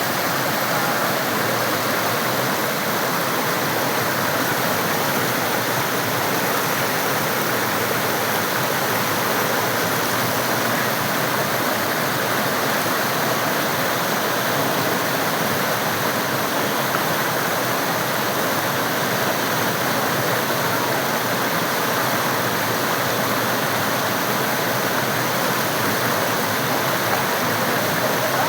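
Mandakini river water rushing steadily, a constant, even rush with no breaks.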